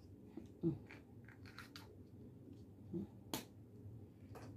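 Plastic Easter eggs and a plastic bag being handled: soft rustling and small clicks, with one sharp click a little after three seconds in.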